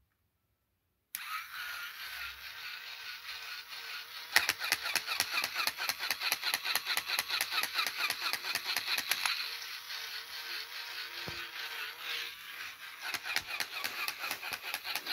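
Battery-powered walking plush dog toy switched on: its small electric motor and gearbox start whirring suddenly about a second in. A few seconds later a rapid, even clicking from the walking mechanism joins the whirr. The clicking thins out for a few seconds after the middle, then picks up again.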